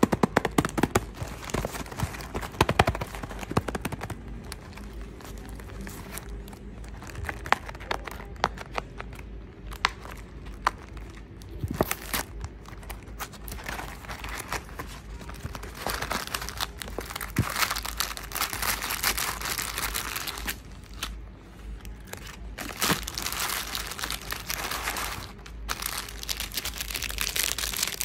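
Hands handling and opening a cardboard cookie box, with sharp taps and clicks of the cardboard, then crinkling of plastic snack wrappers from about halfway through.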